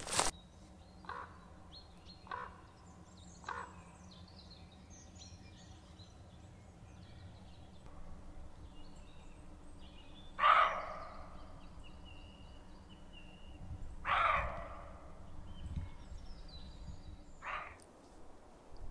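Forest ambience with a crow-like bird cawing: three short caws in the first few seconds, two louder, longer ones about ten and fourteen seconds in, and a last short one near the end. Small songbirds chirp faintly in the background.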